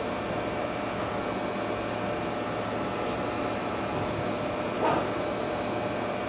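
Corded electric hair clippers buzzing steadily as they cut short hair, briefly louder about five seconds in.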